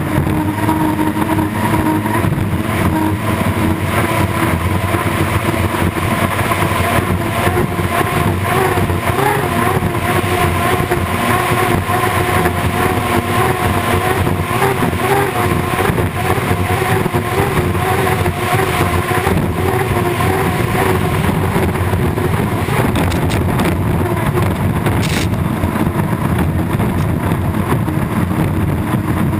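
Turbine-powered unlimited hydroplane running flat out, its engine making a steady pitched drone that wavers slightly, over a constant rush of wind and water spray against the hull.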